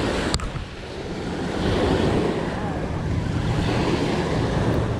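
Small waves breaking and washing up on a sandy beach, with wind rumbling on the microphone; the surf swells louder about a second and a half in. A single sharp click about a third of a second in.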